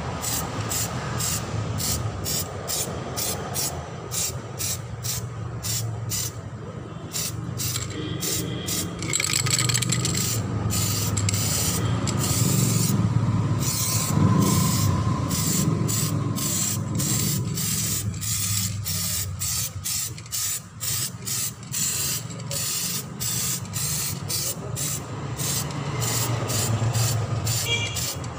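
Aerosol can of Samurai metallic silver spray paint hissing in quick, repeated bursts as it is sprayed onto an alloy wheel, over a steady low rumble.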